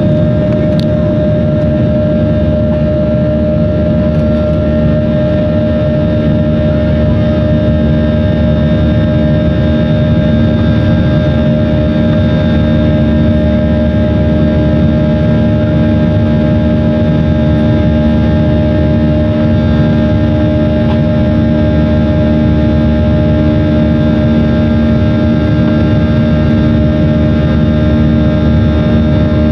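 Boeing 737's CFM56-7B turbofan engines at takeoff power, heard inside the passenger cabin as the jet lifts off and climbs: a steady rushing noise with several steady humming tones.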